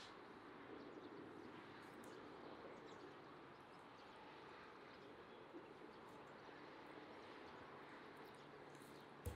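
Near silence: faint steady outdoor background noise, with a single sharp click near the end.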